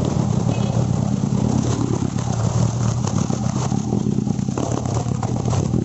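Motor scooter engine running steadily while driving through floodwater, with water splashing and churning around it.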